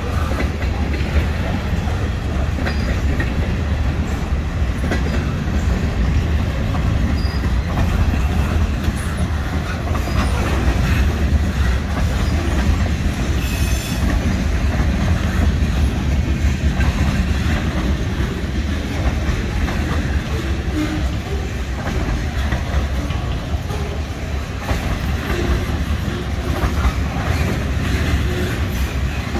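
Norfolk Southern freight train's cars rolling steadily past at close range: covered hoppers, boxcars, center-beam flatcars and a tank car, their wheels running over the rails with a continuous heavy rolling noise.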